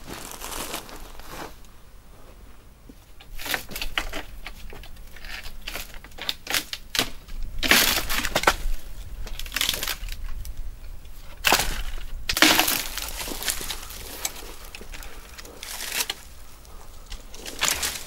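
Dry branches cracking and snapping and brush rustling as dead wood is pulled and broken, with footsteps on dry, stony ground. The sound comes in irregular bursts, loudest about halfway through.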